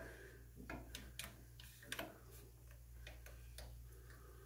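Faint, irregular ratcheting clicks as the trigger of a one-handed bar clamp is squeezed, tightening it onto a wooden spoon, over a steady low hum.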